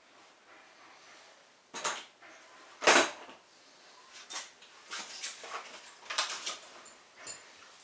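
Metal door-knob parts clinking and knocking as they are handled, with the loudest knock about three seconds in and a cluster of lighter clinks later.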